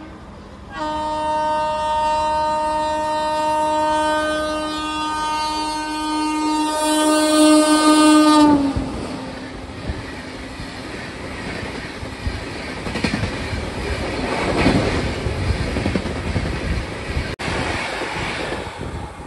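A train horn sounds one long, steady blast of about eight seconds that cuts off sharply. A passenger train's coaches then roll past close by with a rumbling rattle and clattering wheels over the rail joints.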